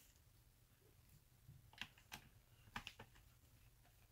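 Faint, sharp clicks of a screwdriver and fingers handling screws on a laptop's plastic bottom case, about five of them in the second half.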